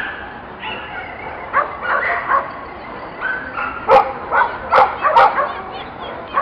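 Dog barking and yipping repeatedly in short high calls, with a few louder, sharper barks about four to five seconds in.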